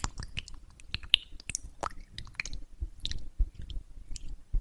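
A wet paper facial mask sheet being laid over a mannequin's face and pressed down with fingertips: an irregular run of soft wet squishes and small crackles.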